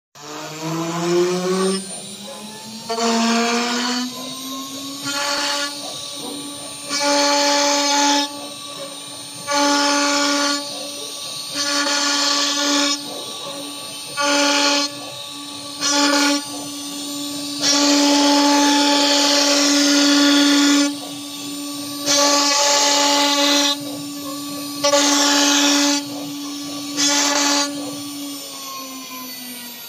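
Acctek 1325 ATC CNC router spindle whining as it spins up with a rising pitch, then holding a steady high whine. Its V-bit engraves lettering into a fibreboard sheet in repeated louder, rougher cutting passes of about one to three seconds each, and the pitch starts to fall near the end as the spindle winds down.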